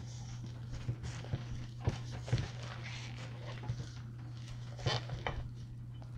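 Silicone spatula folding whipped egg whites into a wet shredded-coconut mixture in a stainless steel bowl: soft scrapes and light taps against the bowl's side, over a steady low hum.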